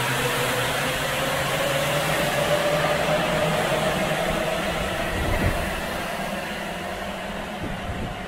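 Sapporo Municipal Subway rubber-tyred train pulling out of the station, its motor whine rising steadily in pitch as it accelerates. Rolling noise fades as the last cars pass, with a single knock about five and a half seconds in.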